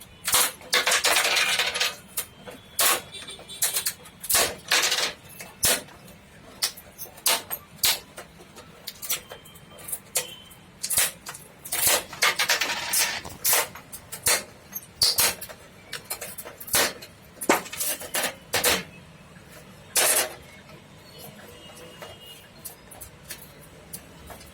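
Old LED backlight strips being pulled out of a TV's metal back panel: a busy run of metallic clicks, clinks and knocks, with a couple of longer scraping or tearing sounds near the start and about halfway through.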